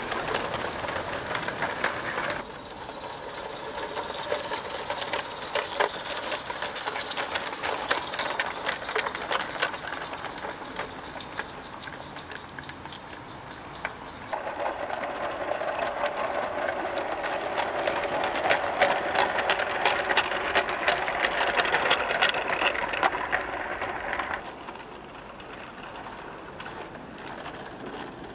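Garden-railway model train running on outdoor track: a fast, steady mechanical clatter with many small clicks from the wheels and running gear. It drops in level after about two seconds, is louder again through the middle, and quieter near the end.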